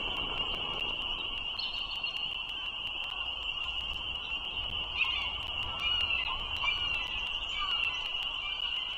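A chorus of frogs calling without a break, a shrill high band typical of spring peepers, with a few short chirps from about halfway in.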